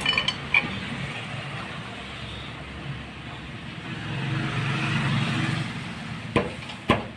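Sharp metal clinks of a ring spanner on the scooter's variator nut, a few near the start and two louder ones near the end. Behind them, the engine of a passing motor vehicle hums, rising and fading in the middle.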